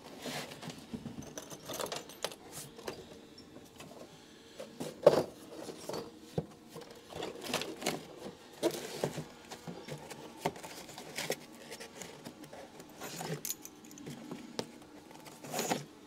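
Scattered, irregular knocks and clatter, the loudest about five seconds in, over a faint steady hum.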